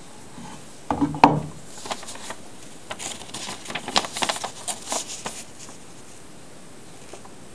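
A sharp knock about a second in, then a few seconds of crisp paper rustling and crinkling as a sheet of paper is handled against a planer knife blade.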